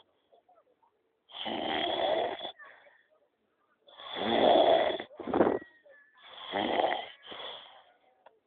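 A man snoring in his sleep: three long rasping snores about two and a half seconds apart. The last two are each followed by a shorter snort.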